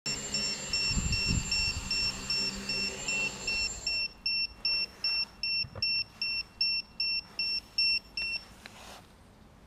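Samsung smartphone timer alarm beeping rapidly, about three short high beeps a second, the signal that the 30-minute hover time is up. For the first four seconds the quadcopter's four brushless motors and 10-inch props hum underneath as it sets down, then they stop and the beeping goes on alone until it is switched off near the end.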